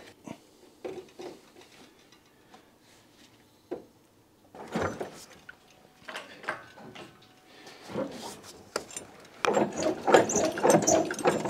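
Scattered metallic clinks and knocks of hand tools and engine-bay parts during work on an engine hanging from an engine crane, then a rapid metallic rattling starting near the end.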